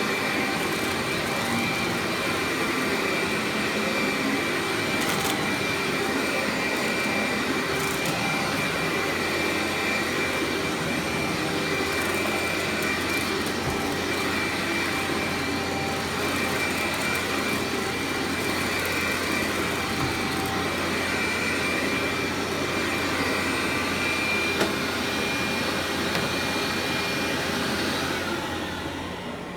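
Workhorse vacuum cleaner's motor running steadily with a constant high whine over the rush of airflow, dropping in level near the end.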